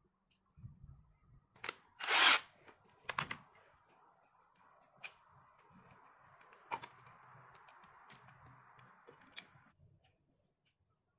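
Sharp clicks and knocks from a wooden slingshot frame and its rubber band being handled, with one loud burst of noise about two seconds in and a faint rubbing hiss in the second half.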